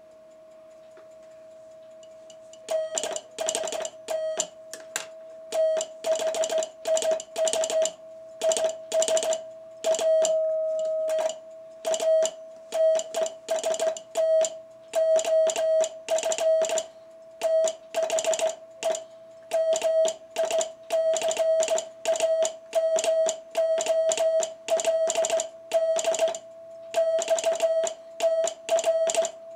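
Morse code (CW) sent on a 1948 Micamold XTR-1 vacuum-tube transmitter and heard through a communications receiver: a keyed tone of dits and dahs starting about three seconds in. A faint steady tone from the transmitter's continuously running crystal oscillator stays audible between the elements, in key-up. The sidetone oscillator and the receiver audio beat together into a slight warble.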